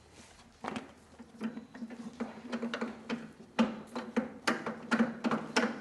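Irregular clicks and light metallic knocks from hand tools and metal parts being handled during assembly, busier and louder in the second half, over a faint steady low hum.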